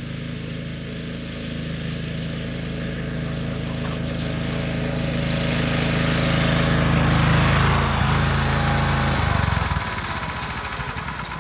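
John Deere Hydro 175 lawn tractor's engine running steadily as the tractor drives closer, growing louder. About nine seconds in the engine is switched off and dies away.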